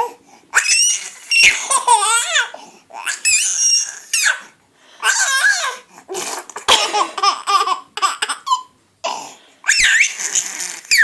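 Baby boy laughing in a string of high-pitched bursts with short pauses between them, laughter set off by an adult's coughing.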